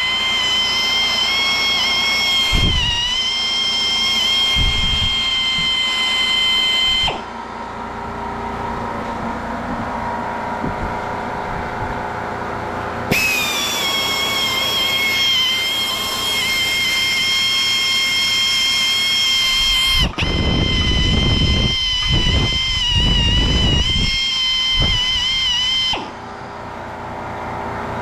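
Stick (arc) welding: three runs of crackling arc with a steady high-pitched whine. The first run stops about seven seconds in, the second starts abruptly about thirteen seconds in, and the last cuts off near the end.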